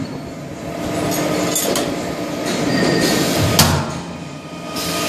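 Pneumatic corner fixing machine at work on sheet-metal duct: metallic clanks and stretches of hiss over steady machine hum, with one sharp bang about three and a half seconds in.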